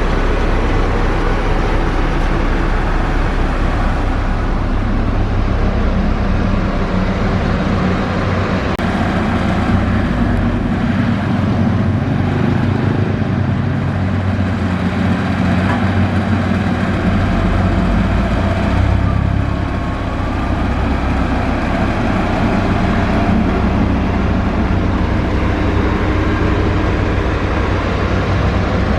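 Heavy diesel construction machinery, such as a motor grader, running and working steadily with a deep engine rumble that shifts in pitch as the load changes.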